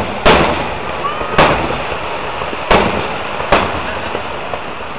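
Aerial firework shells bursting: four sharp bangs at uneven intervals over the first few seconds, each followed by a short echo, over steady background noise.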